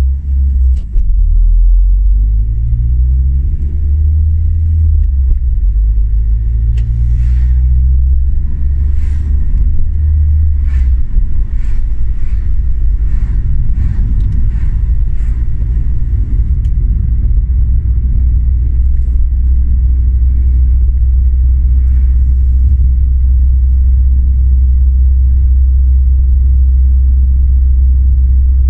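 Car engine and road noise heard from inside the cabin. In the first ten seconds the engine pitch climbs and drops back a few times as the car accelerates up through the gears, then settles into a steady low rumble while cruising, with a few faint ticks along the way.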